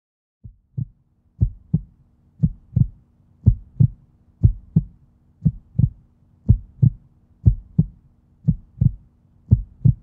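Heartbeat sound effect: a steady double thump, lub-dub, about once a second, over a faint low hum.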